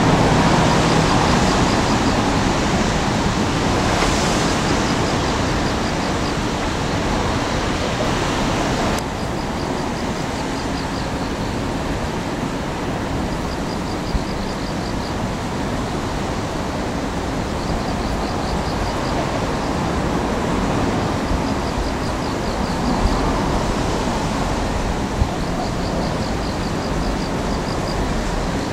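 Demolition excavator working at a distance, its engine running as a steady noisy rumble, with a couple of faint sharp knocks. A faint high trill recurs every few seconds.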